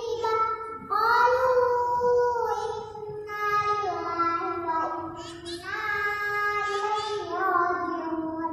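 A young girl chanting Qur'anic verses from memory in a melodic recitation, into a hand-held microphone. She holds long notes with slow bends in pitch and pauses briefly for breath about one second in and again near the five-second mark.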